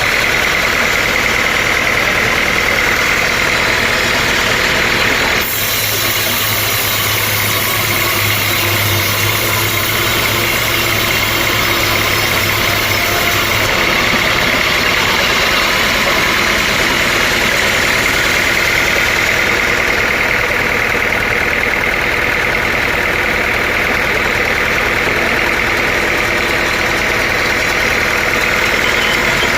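Sawmill machinery running steadily: a continuous engine-like drone with a steady high tone over it. The sound changes abruptly about five seconds in and again around the middle.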